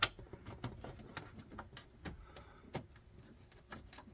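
Light, irregular clicks and taps, the sharpest right at the start: screws and a plastic trim cover being handled and fitted in place.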